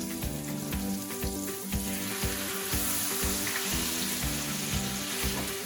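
Eggplant omelet frying in hot oil in a pan, a steady sizzle, over background music with a steady beat.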